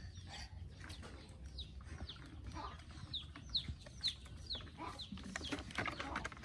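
Chick peeping: a series of short, high, falling cheeps, about two a second, that stop a little over halfway through.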